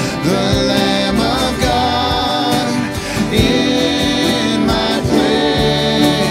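Live church worship band playing a slow song: voices singing the melody over acoustic guitar, electric guitars and keyboard.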